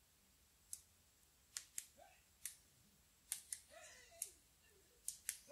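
Faint, irregular sharp clicks, about nine in five seconds and some in quick pairs, over near silence, with short squeaky chirps about two and four seconds in.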